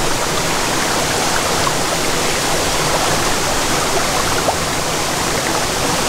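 Steady rush of a creek and small waterfall: water running continuously over rocks.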